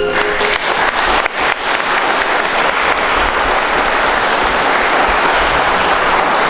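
Audience applauding steadily. The final held violin and accordion note dies away about half a second in.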